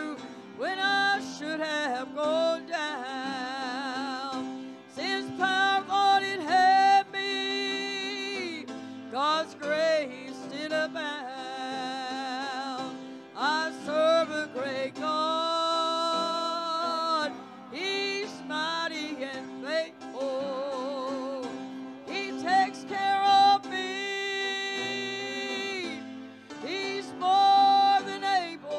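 A man singing a country-style gospel song into a microphone, with wavering vibrato on his held notes, over a steady instrumental accompaniment.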